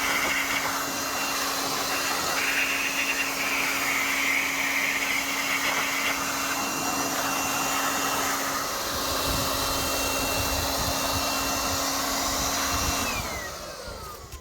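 Electric car-wash machine running steadily: a high motor whine and a low hum over a loud rushing hiss, then switched off about a second before the end, its whine falling as the motor spins down.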